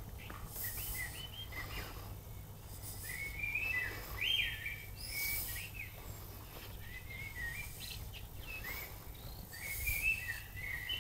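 Songbirds singing in the trees: short warbling phrases repeated again and again, with brief high, thin chirps between them.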